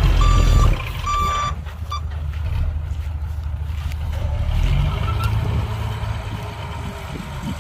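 Reversing alarm of a heavy earthmoving machine beeping about three times and then stopping, over its diesel engine running. The engine is loud at first, eases off just under a second in, then runs steadily lower.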